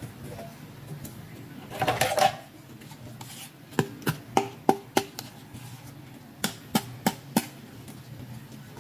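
Hands handling small hard-plastic doll accessories, a pink toy hand mirror among them. A short clatter comes about two seconds in, then two runs of sharp plastic clicks and taps, about three a second.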